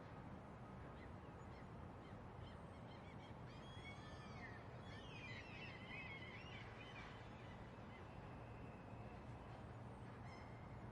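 Distant gulls calling: a cluster of high cries that glide up and down in pitch through the middle few seconds, over a faint steady background noise.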